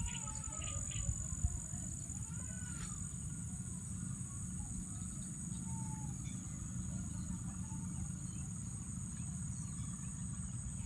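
Steady high-pitched insect chorus trilling without a break, over a low rumble, with a few short chirps and gliding calls in the first couple of seconds.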